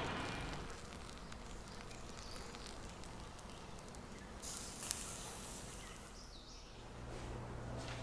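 Faint outdoor background noise, with a short hiss and a click between about four and a half and five seconds in.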